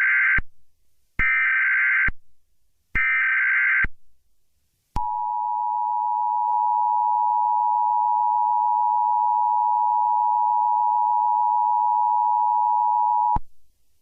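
Emergency Alert System broadcast alert. First the end of one burst of SAME digital header data and two more, each a harsh screech about a second long with short gaps between. Then, about a second later, the EAS two-tone attention signal: a steady loud beep held for about eight seconds before it cuts off.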